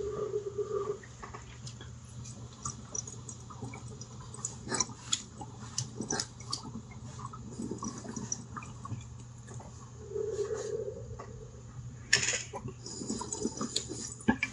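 Water bubbling in a glass bubbler as a dab is drawn through it from an electronic e-rig: an irregular run of small pops and gurgles.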